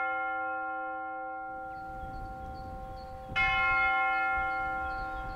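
A single church bell tolling. A stroke from just before keeps ringing and slowly fades, and the bell is struck again about three and a half seconds in, ringing on with the same tone.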